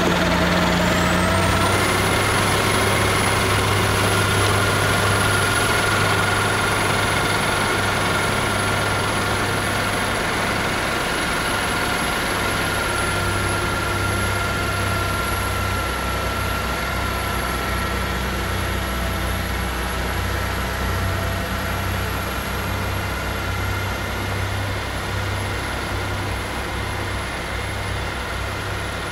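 Heavy snow-clearing machinery running steadily: a diesel engine hum with a high whine that rises about a second in and then holds.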